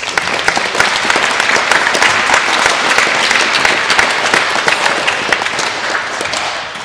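Audience applauding, many hands clapping together. The clapping starts right away and tapers off near the end.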